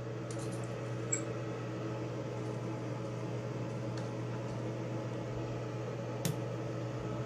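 A steady, low mechanical hum of room background noise, with a few faint, light clicks from small faucet parts being handled and pressed into place.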